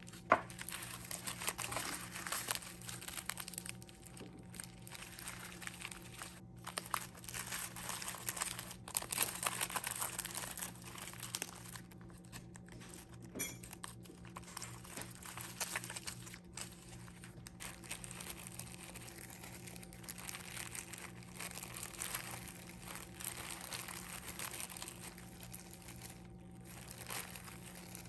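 Plastic onigiri wrapper and cling film crinkling and rustling in the hands as a rice ball is wrapped, busiest in the first ten seconds or so. A steady low hum from a refrigerator close by runs underneath.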